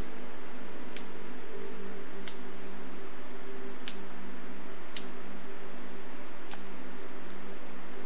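Campfire crackling: sharp wood pops about once a second over a steady hiss, with a steady low hum underneath.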